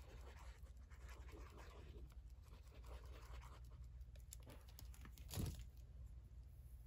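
Faint scratching of a squeeze glue bottle's nozzle drawn across a paper page as a line of glue is laid down, with a single soft knock about five seconds in.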